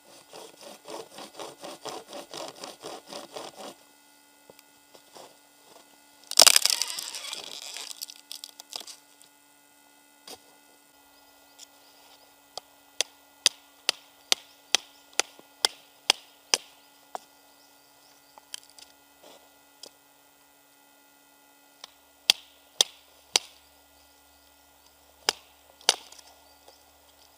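Camping hand saw cutting through wood in quick, even strokes, about four a second, for a few seconds. Then a loud crack of the wood splintering and breaking that lasts about two seconds, followed by runs of sharp single knocks on wood, about two a second.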